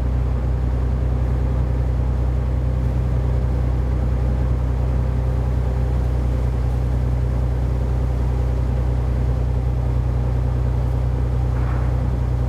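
Nissan 300ZX (Z32) V6 engine idling steadily, a low hum with a few even, unchanging tones.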